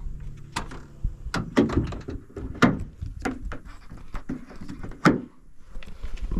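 Jeep Wrangler hood being lowered and its rubber hood latches hooked shut: a string of sharp clacks and knocks, the loudest about halfway through and again near the end.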